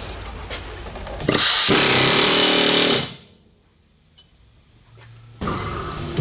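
Pneumatic impact wrench hammering in a loud burst of about two seconds, starting just over a second in, then running again more quietly near the end.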